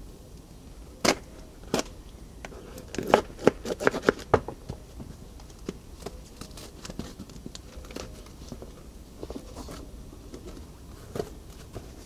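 Cardboard shipping box being cut open and handled: a knife slitting the packing tape, with the cardboard flaps and a paper flyer moved about. Scattered sharp clicks and scrapes, with a quick run of them about three to four seconds in and lighter ticks after.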